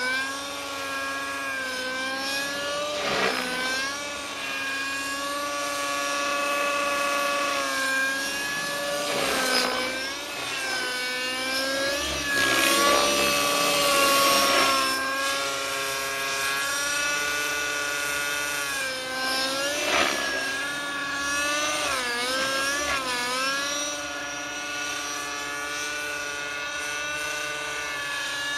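Align T-Rex 600N nitro RC helicopter in flight, its Redline .53 glow engine with Redline Hi Flow tuned pipe running together with the rotors. The engine note holds high and nearly steady, rising and sagging in pitch as the helicopter manoeuvres, with two quick dips in pitch about three-quarters of the way through.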